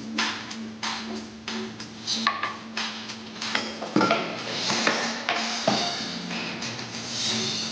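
Dishes and cutlery clinking and clattering in a kitchen, a string of short sharp knocks, with music playing underneath.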